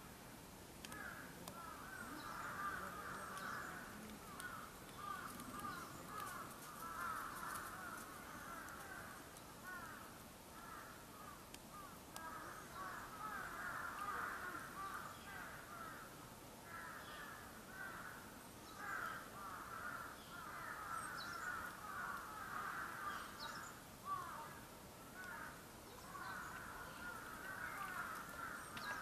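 Many birds calling over one another, in repeated bursts of a few seconds each with short lulls between.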